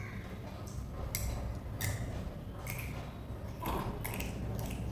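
Tulsi leaves held over a candle flame to wilt them, giving faint, scattered crackles and ticks a few times over the seconds.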